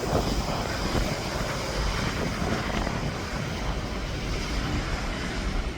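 Aircraft engine noise as a steady rushing hum, with wind buffeting the microphone in uneven low rumbles.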